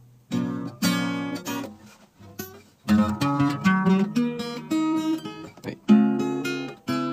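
Acoustic guitar being strummed: two chords near the start, a pause about two seconds in, then a run of chords and picked notes from about three seconds on.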